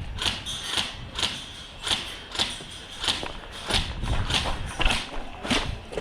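Footsteps of an airsoft player walking forward, about ten evenly spaced steps, a little under two a second, each a short crunch or scuff.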